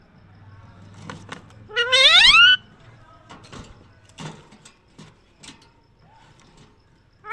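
A pet parrot gives one loud call about two seconds in, lasting about a second and rising steadily in pitch, with a few soft clicks scattered around it.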